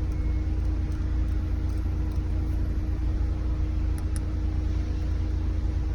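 Steady low rumble with a faint constant hum, as of a car idling heard from inside the cabin.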